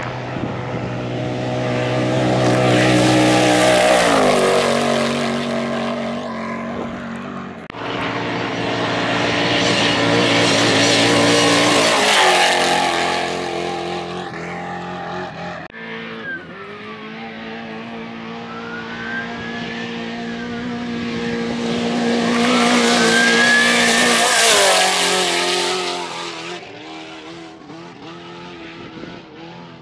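Off-road race trucks pass one after another at high speed, about three times. Each engine note climbs as the truck approaches and drops in pitch as it goes by.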